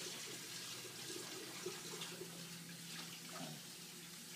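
Water running faintly from a tap into a sink, with a low steady hum for a couple of seconds midway.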